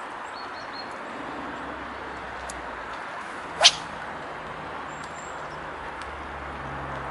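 A light spinning rod whipping through the air on a cast: one quick, sharp swish rising steeply in pitch about three and a half seconds in, over steady outdoor background noise with a few faint high bird chirps.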